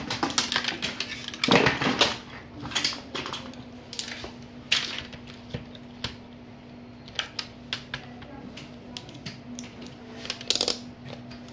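Irregular clicks, taps and clatter of a digital multimeter and its test leads being handled and set down, with the probe tips tapping on a laptop motherboard. A steady low hum runs underneath.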